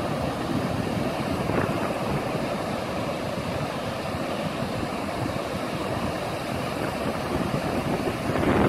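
Ocean surf washing and breaking in a steady rush, with wind buffeting the microphone.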